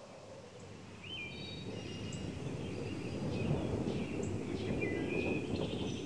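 Outdoor nature ambience: small birds chirping and calling again and again over a steady rustle of wind, which grows louder about a second in.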